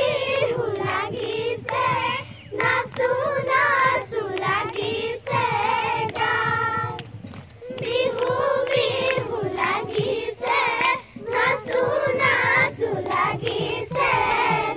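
A group of young girls sing a Bihu song together in unison, clapping their hands along to the song.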